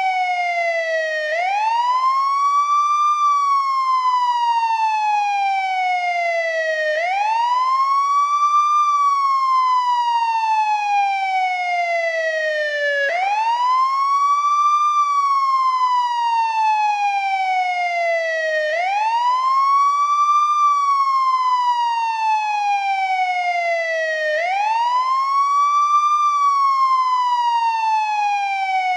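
Older-model American ambulance siren sounding its wail: the pitch climbs quickly, then slides slowly back down, repeating about every six seconds in a steady cycle.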